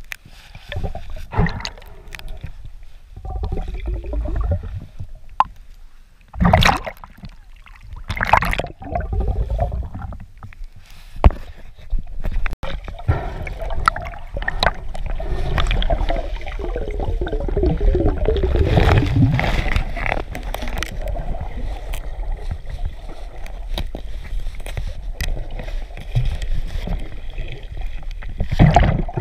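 Water sloshing and gurgling around an underwater camera during a dive, with bubbles rising past it. A few sharp knocks come in the first half, and the second half is a denser, steadier rush.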